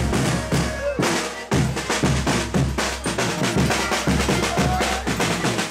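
Folia de Reis percussion playing a fast chula rhythm on snare drum and bass drum. There is a short break about a second in, then the drumming picks up again.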